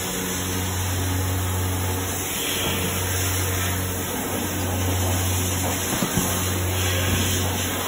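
Electric pan motor of a remote-controlled LED searchlight running with a steady low hum that drops out briefly a few times as the head turns and stops. Near six seconds there are a couple of light knocks as the lamp's handle is gripped.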